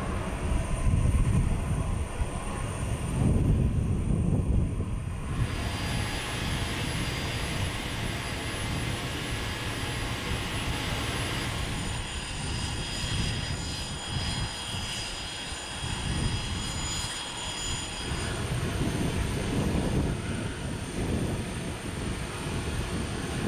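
Jet aircraft running: a steady rumble with a thin, high-pitched whine above it. The sound changes abruptly a couple of times.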